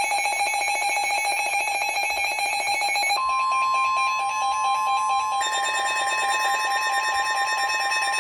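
Weather alert alarm: a loud electronic alarm beeping rapidly on several pitches. About three seconds in it is joined by a steady 1050 Hz NOAA Weather Radio warning tone, and about five seconds in by a second steady tone.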